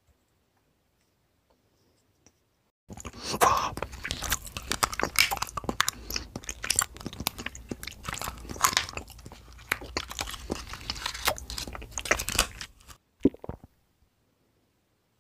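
Close-up crunchy chewing and biting, starting about three seconds in and running for about ten seconds as a dense crackle of crunches, with one short last burst of crunching after a brief pause.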